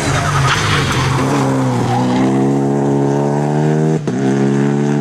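Rally car engine held at high revs, with a rush of tyre noise in the first second or so. Its pitch dips briefly near the middle, and there is a short break about four seconds in.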